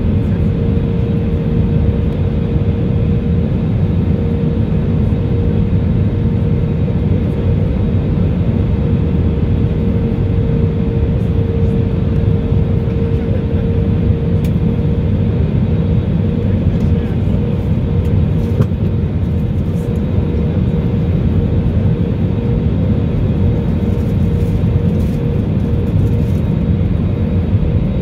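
Steady cabin noise inside an Airbus A320neo on approach: the deep roar of airflow and its Pratt & Whitney PW1100G geared turbofan engines, with a steady hum running through it.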